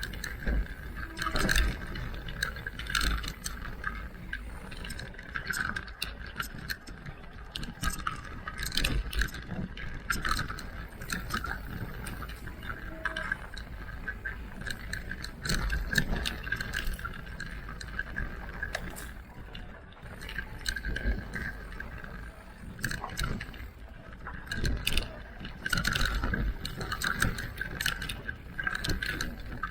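Electric mountain bike ridden over a rough trail: chain and frame rattling, with irregular sharp clicks and knocks from the bumps throughout.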